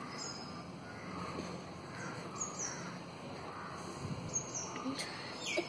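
Birds calling: short high chirps, several of them in pairs about two seconds apart, over a steady low background noise.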